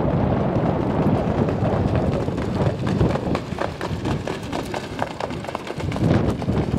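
Hoofbeats of two trotting harness horses pulling sulkies, a rapid run of hoof strikes on the dirt that grows loud through the middle as they pass and then fades. Wind rumbles on the microphone underneath.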